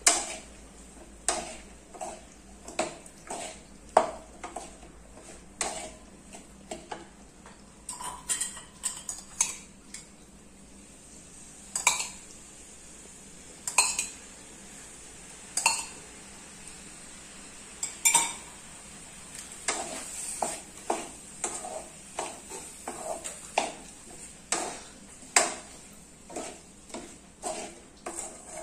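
Wooden spatula stirring potato cubes in a metal kadai, knocking and scraping against the pan again and again, with a few louder ringing metal clinks in the middle.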